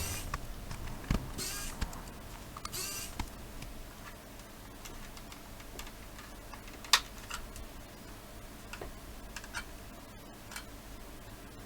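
Cordless electric precision screwdriver (Wowstick) whirring in three short bursts in the first three seconds as it backs out the small case screws of a MiniDisc recorder. Scattered small clicks and taps follow, the sharpest about seven seconds in.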